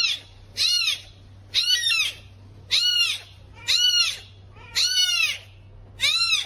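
An animal giving a series of seven short, high-pitched cries, each rising and then falling in pitch, about one a second.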